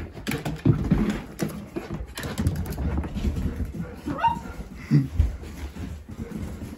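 Miniature dachshund vocalizing during rough play with a hand, with a brief rising whine about four seconds in. Rustling and knocks from hands and a handheld phone run throughout.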